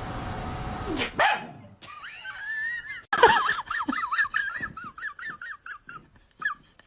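A dog giving a rapid string of high, wavering yips and whines, about four calls a second, after a couple of seconds of steady hissy noise.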